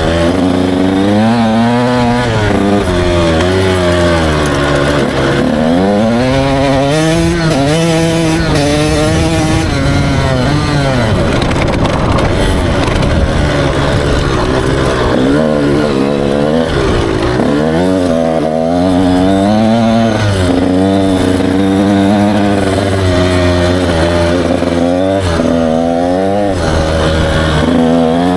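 Dirt bike engine under the rider, revving up and backing off again and again as it is ridden, its pitch climbing and dropping every few seconds. About halfway through, the engine note turns into a rougher, noisier stretch with no clear pitch for a few seconds.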